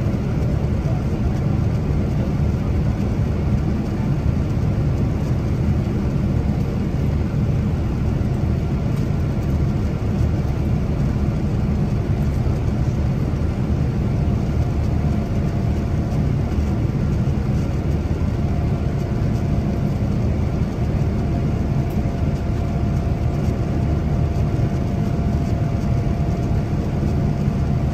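Cabin noise of a Boeing 787-8 airliner in flight, heard beside the engine: a steady, even rumble of engine and airflow noise, strongest in the low end. A faint steady hum joins in about two-thirds of the way through.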